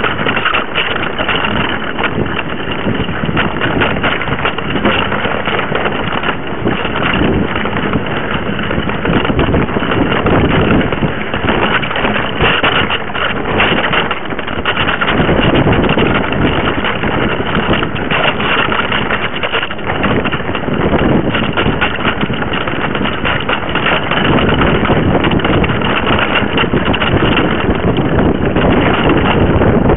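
Mountain bike riding fast over a rough forest trail, heard through a camera mounted on the bike: continuous rattling of the bike and tyre noise, with wind on the microphone.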